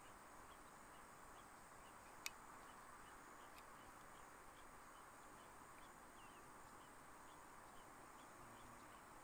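Faint field ambience: insects chirping in short repeated chirps over a steady high hiss, with a single sharp click about two seconds in.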